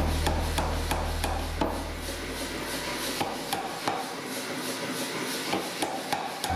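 Hammer blows forging steel, a run of sharp strikes about three a second, under a low hum that fades out over the first two seconds.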